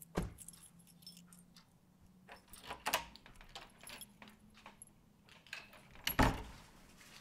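Scattered clinks, knocks and rustles of someone rummaging through a kitchen for food, with a heavier knock about six seconds in.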